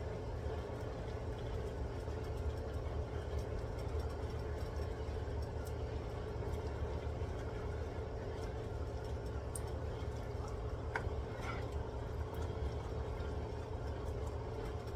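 Chicken sautéing in a pan: a soft steady hiss over a constant low hum and tone, with a few light clicks.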